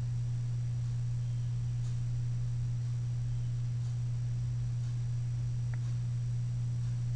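A steady low hum, one unchanging tone throughout, over faint background hiss.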